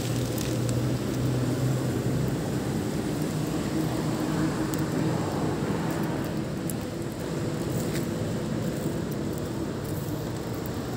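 Steady low hum of an engine running at idle, with a constant pitch and a noisy rumble underneath.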